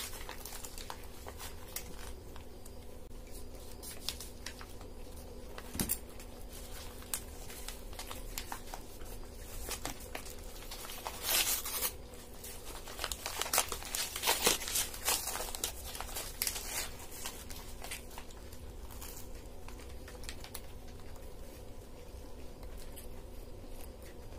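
Paper wrappers around egg rolls crinkling and tearing as they are handled and peeled back, in scattered short rustles, the loudest cluster about halfway through. A faint steady hum lies underneath.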